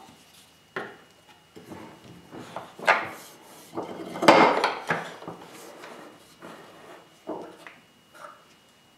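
Hardwood spacer blocks knocking and clattering against each other and against the wooden vise as they are handled, in a string of irregular wooden knocks. The loudest come about three and four and a half seconds in.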